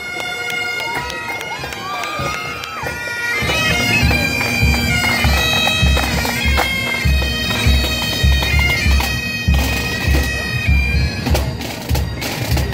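Pipe band playing: bagpipes sounding a tune over a steady drone, with a bass drum coming in about three and a half seconds in and beating steadily.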